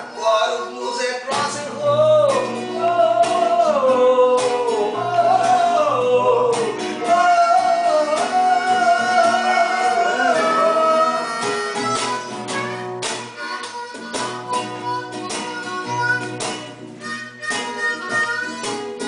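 Live amateur jam on guitar, with a bending, gliding melody line over the chords.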